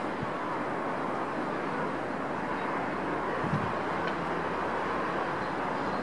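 Steady hum of distant city traffic, an even wash of noise with no distinct events, and one brief low bump about three and a half seconds in.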